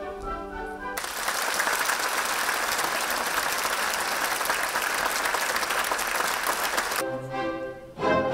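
Audience applause, a dense even clapping lasting about six seconds, cutting in abruptly after about a second of orchestral ballet music; the orchestral music returns near the end.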